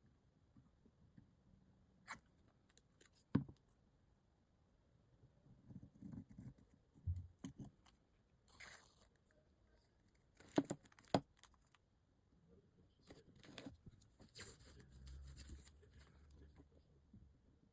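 Faint, irregular hand-work on a small diecast model car: a few sharp clicks and taps, with short bouts of scratching and scraping between them.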